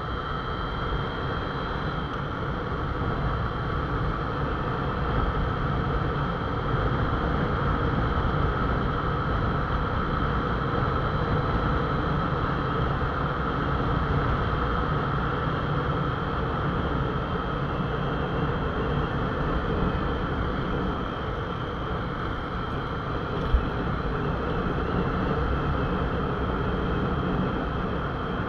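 Motorcycle engine running steadily at cruising speed, with wind and road noise over the microphone; a single sharp click comes about 23 seconds in.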